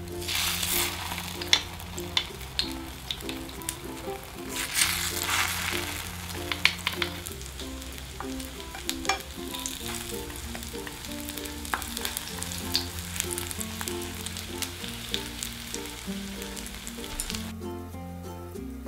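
Egg-battered zucchini slices frying in oil in a nonstick pan: a sizzle full of small crackles and pops, louder in two spells early on and around five seconds in. It stops about a second before the end.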